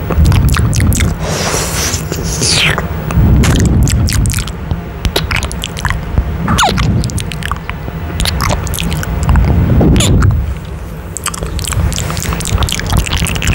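Close-up wet kissing and lip-smacking pressed against a condenser microphone's grille: a quick, irregular string of smacks and clicks over low thumps and rumble from lips and breath right on the mic.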